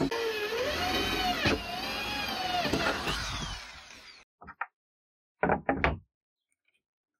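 Corded electric drill boring through a steel bar, its motor whine rising and falling in pitch as the bit bites, with a few clicks. It stops abruptly about four seconds in. A few short wooden knocks follow as boards are set down on the wooden frame.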